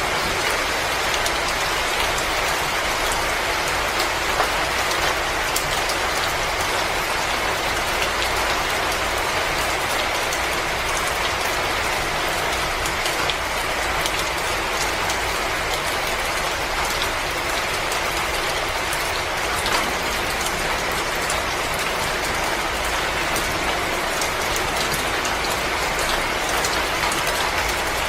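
Wood fire crackling in a fireplace: a steady hiss dotted with many small irregular snaps and an occasional louder pop.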